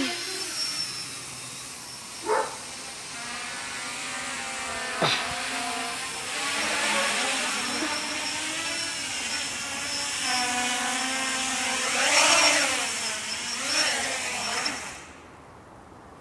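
Quadcopter's electric motors and propellers whining in flight, the pitch rising and falling with the throttle and loudest shortly before the end. Near the end the whine cuts off as the motors stop with the quad on the ground.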